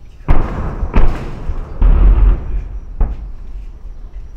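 Large high-explosive detonations: a sharp blast about a third of a second in and another about a second in, then a longer, heavy low rumbling blast around two seconds in and a smaller blast at about three seconds.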